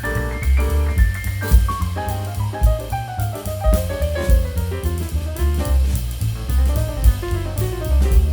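Background music with a heavy bass and drum beat and melodic instrumental runs.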